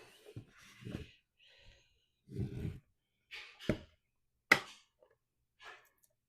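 Wooden tissue-box cover panels being handled and pressed together: scattered light knocks and clicks, with a sharp snap about four and a half seconds in. A brief sigh comes a little before the snap.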